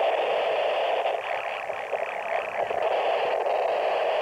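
Steady hiss-like noise, with faint voices in it.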